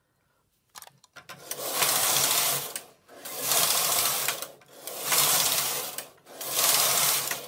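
Silver Reed punchcard knitting machine carriage pushed across the metal needle bed four times, back and forth, each pass a loud rasping clatter of the needles lasting about a second and a half, with brief pauses at each turn.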